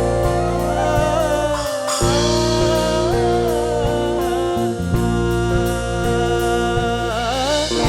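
Instrumental break in a folk-song arrangement for a band: a lead melody that slides and bends between notes over sustained bass notes and a regular drum beat.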